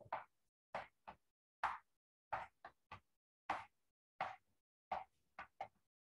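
Chalk writing on a blackboard: about a dozen short, separate strokes, roughly two a second, with brief gaps between them as the letters are written.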